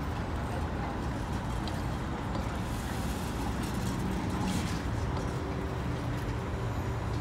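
A TTC CLRV streetcar rolling slowly around the loop and past the platform: a steady low rumble of steel wheels on rail and running gear, with a faint hum.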